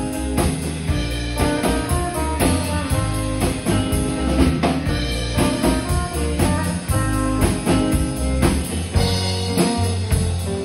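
Live rock band playing, with electric guitars over a steady beat on a drum kit.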